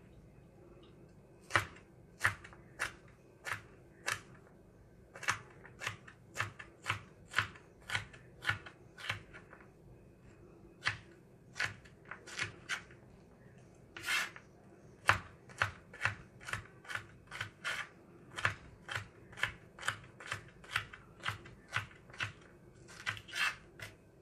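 Chef's knife slicing a green bell pepper into strips on a plastic cutting board: a run of sharp knocks as the blade meets the board, about one or two a second, with a few short pauses.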